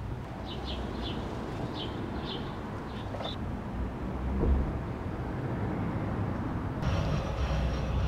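Steady low outdoor rumble, with several short high chirps in the first three seconds and a single thump about four and a half seconds in.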